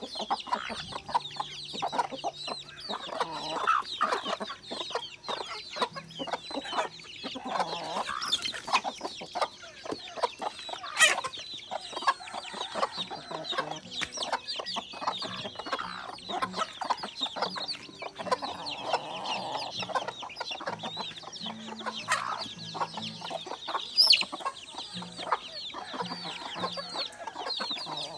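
A flock of free-range native chickens clucking continuously while they feed, mixed with dense high peeping from chicks. There are two sharp, louder calls, one about eleven seconds in and one about twenty-four seconds in.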